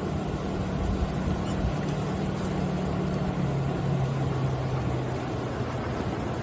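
A car engine running steadily under a loud rush of floodwater and wind noise. The engine's hum drops slightly in pitch about three and a half seconds in.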